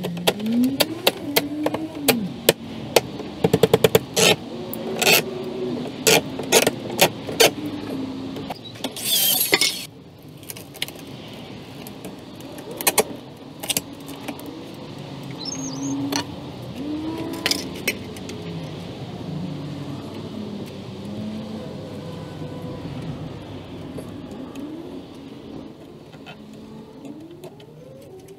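Hand-tool work on the wooden soffit and fascia trim: a quick run of sharp clicks and knocks through the first eight seconds or so, a short rushing scrape about nine seconds in, then a few isolated knocks with a faint low hum underneath.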